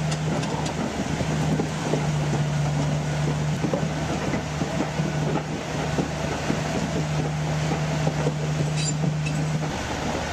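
Komatsu D475 bulldozer's large diesel engine running steadily under load, a low drone over a dense mechanical rumble. The drone drops out briefly about a second in and again near the end.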